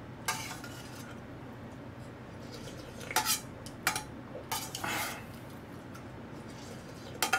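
A metal utensil clinking and scraping against a thin aluminium ramen pot as noodles are scooped out and eaten. It comes in several short bursts: one just after the start, a cluster in the middle, and one near the end.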